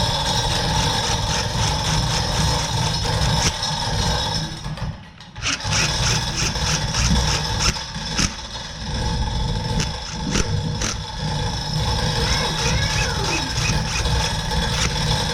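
A loud motor-driven machine running steadily with a whine over a low rumble. It cuts out briefly about five seconds in and starts again.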